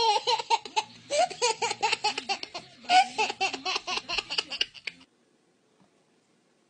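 Baby laughing hard in quick, repeated bursts, cutting off suddenly about five seconds in.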